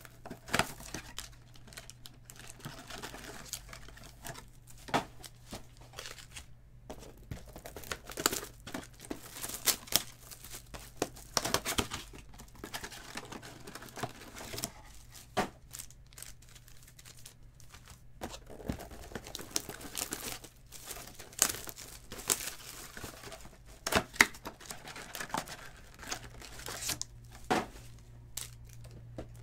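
Trading card pack wrappers being torn open and crinkled by hand, in a run of irregular rustles and sharp crackles.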